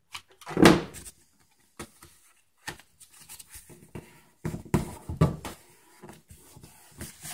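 Thin cereal-box cardboard being folded and pressed flat by hand on a wooden table: rustling and scraping with a few thumps, the loudest about two thirds of a second in and another cluster around five seconds in.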